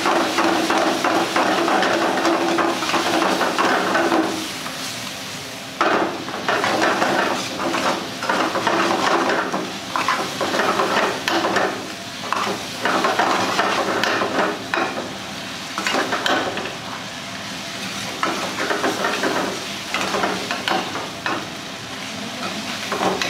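Metal ladle stirring and scraping chicken in thick masala in a steel kadai on the gas flame, in bursts of quick strokes, with the masala sizzling as it fries. The stirring stops for a moment about four seconds in, then starts again.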